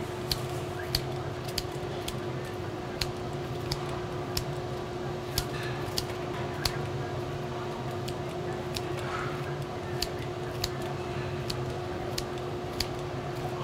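Kitchen scissors snipping through crisp-fried, battered pork ribs, a sharp snip about every two-thirds of a second, over a steady hum.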